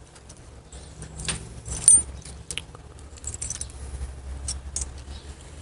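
Small cam shims for a Harley-Davidson Evolution engine clinking against each other and against a dial caliper as they are picked through and measured by hand: light, scattered metallic clicks, loudest about two seconds in, over a faint low hum.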